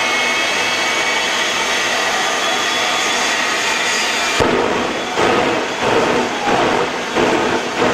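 Truck-mounted turbojet engine running with a loud, steady rush and a faint high whine; a little over halfway in the sound changes abruptly, losing its hiss and turning into an uneven rush that surges a little under twice a second.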